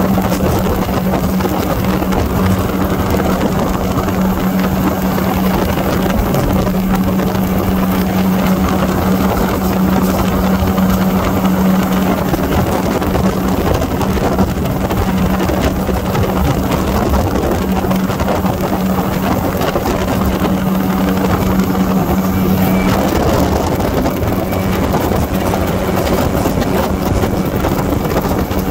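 Small aircraft's engine and propeller running steadily in level flight: a constant low hum over a dense rush of air noise.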